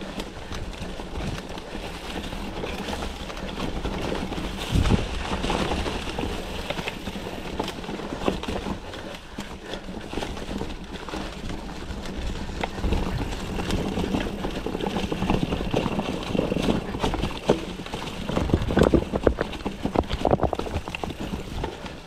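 Mountain bike riding fast down a rough dirt and rock trail: tyres rumbling over the ground and the bike rattling, with a dense run of knocks from bumps. Two hard jolts stand out, about five seconds in and again around nineteen seconds.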